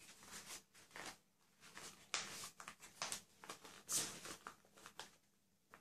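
Paper rustling faintly in short, irregular bursts as hands fold and press a large sheet into the head of an origami hammerhead shark, with a few louder rustles around the middle.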